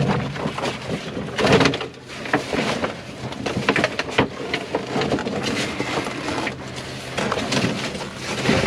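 Rustling, clattering and knocking of packaged goods being handled and sorted, in many short irregular knocks.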